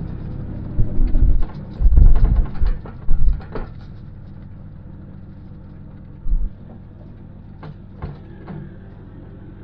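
A vehicle engine running steadily, with several heavy low thumps in the first few seconds, another later, and a few sharp clicks near the end.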